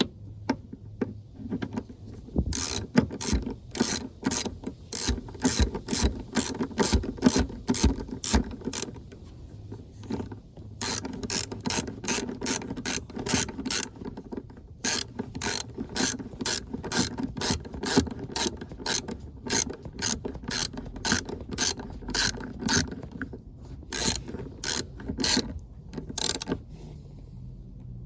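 Hand socket ratchet clicking in runs of about two to three clicks a second, with a couple of short pauses, as a bolt for the rear seatbelt buckle is turned in.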